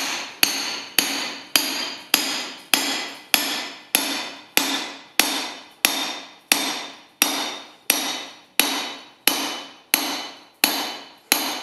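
Hand hammer striking the head of a handled punch held in red-hot steel on a swage block, driving it through to open the eye. The blows come steadily at about two a second, each a sharp metallic strike that rings out briefly.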